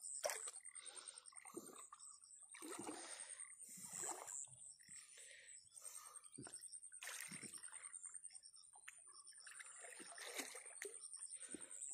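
Faint, irregular sloshing and splashing of muddy water as a man wades chest-deep and gropes with his hands for fish, over a steady high-pitched whine.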